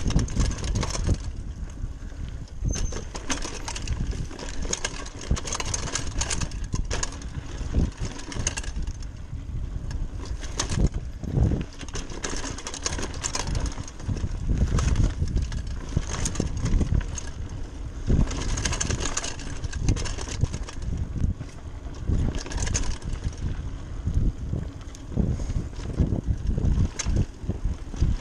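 Giant Talon 3 29er hardtail mountain bike descending a dirt singletrack: a steady rumble of wind on the microphone and tyres over dirt and roots, with frequent rattles and clatters from the bike over the bumps.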